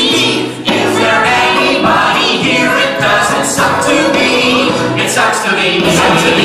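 A group of voices singing together in chorus, a musical-theatre number with accompaniment.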